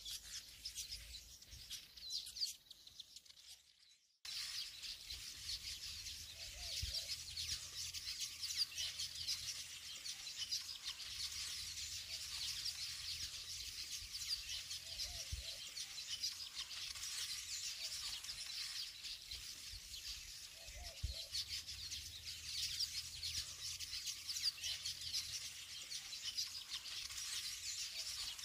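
Birds chirping and twittering in a continuous chorus of short, high calls. It cuts out suddenly for about half a second near four seconds in, then carries on.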